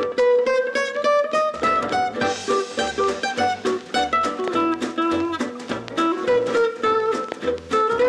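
Background music: a quick plucked-string melody over a repeating bass line.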